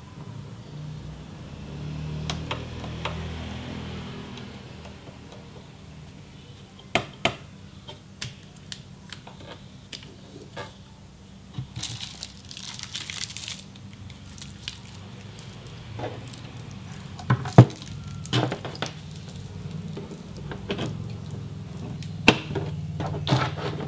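Handling noise from connecting cables to the back of a flat-screen monitor: scattered clicks and knocks as cables and plugs are picked up and the power adapter's plug is pushed into the monitor's power jack near the end, with a brief rustle about halfway through, over a low steady hum.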